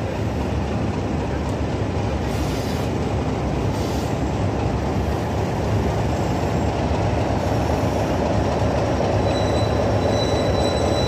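Class 33 diesel locomotive 33109 drawing slowly into the platform, its Sulzer eight-cylinder engine running with a steady low rumble that grows slightly louder as it comes closer. From about halfway through, its wheels squeal with thin, high, steady tones.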